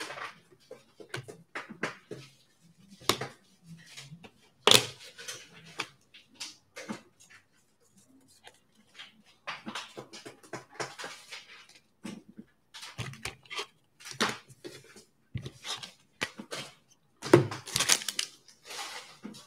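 Scattered light clicks, taps and brief rustles at no steady rhythm, busiest about ten seconds in and again near the end.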